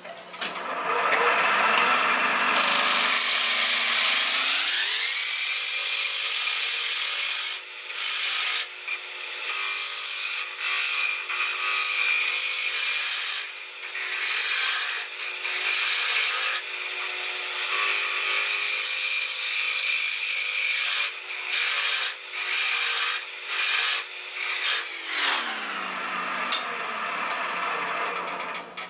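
Wood lathe spins up with a rising whine. A gouge then cuts the inside of a spinning yellow birch bowl with a steady hiss, breaking off and starting again several times as the tool leaves and meets the wood. Near the end the lathe winds down with a falling whine.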